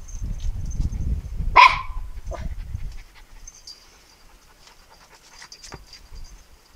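A small Patterdale/Jack Russell terrier panting, with one short sharp bark about a second and a half in; quieter after about three seconds.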